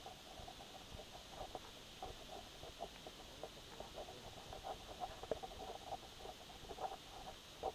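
Toshiba Camileo X Sports action camera's built-in microphone recording a faint steady hiss with scattered small clicks and scratchy rustles while the camera is carried. This is the camera's own noise, which the reviewer counts as a flaw.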